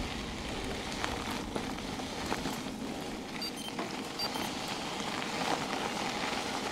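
Bicycle tyres rolling over a gravel field track: a steady gritty crackle with small scattered clicks.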